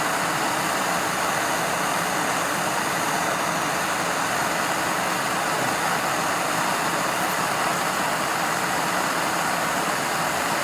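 Hand-held MAP gas torch burning with a steady, even hiss, heating a U-joint bearing cap to melt out its factory plastic retainer.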